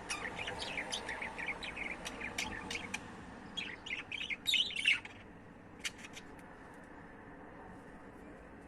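Budgerigar chirping in a quick run of short, varied notes for about five seconds, followed by a few sharp clicks about a second later.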